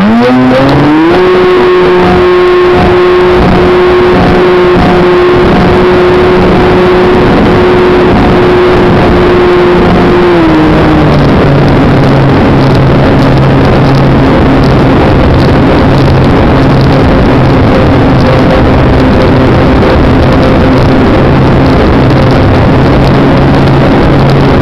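Electric model aircraft's motor and propeller heard close from an onboard camera, with strong wind rush over the microphone. The whine rises in pitch as the throttle opens for takeoff and holds steady, then drops to a lower steady pitch about ten seconds in as the throttle is eased back.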